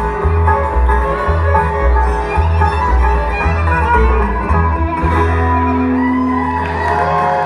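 Live bluegrass band of guitar, banjo, fiddle and upright bass playing the instrumental ending of a song. The upright bass pulses on the beat for about five seconds, then the band holds one long final chord.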